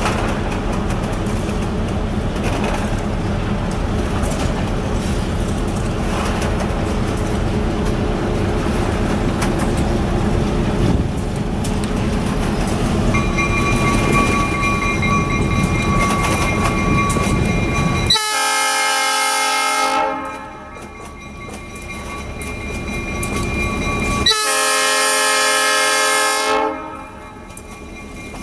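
Diesel locomotive rumbling past on the track, then two long blasts of its air horn, each a chord of several tones lasting about two seconds, the second starting about six seconds after the first.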